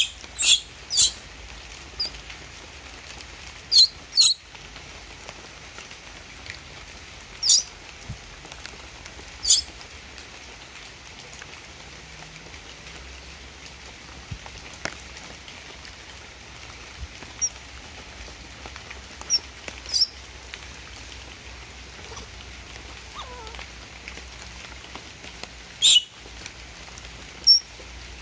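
A baby macaque giving short, high-pitched squeaks, about a dozen scattered through, over a steady patter of rain on leaves.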